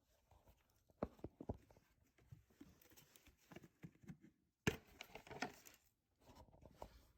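Faint, irregular handling noise: scattered taps, clicks and light rustling, with a sharp knock about a second in and a louder clatter a little past the middle.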